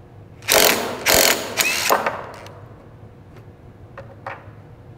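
Cordless impact wrench with a socket, rattling in three short bursts over about a second and a half as it spins off the 17 mm nut on a transmission mount; a few light clicks follow.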